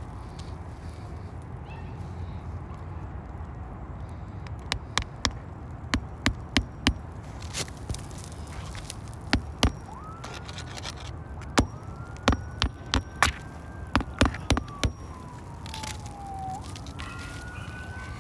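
Sharp hammer blows in short runs of a few strikes, nailing a replacement asphalt shingle onto a roof. A faint siren rises, holds and falls from about ten seconds in.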